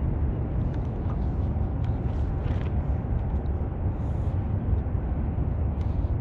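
Wind on the microphone making a steady low rumble while a small sailing dinghy moves through the water, with a lighter hiss of water and a few faint clicks.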